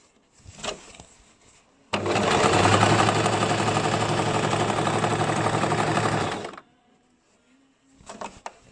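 Basic electric sewing machine stitching fabric in one steady run of about four and a half seconds. It starts suddenly about two seconds in and stops cleanly. There is a short click before it and a few light clicks near the end.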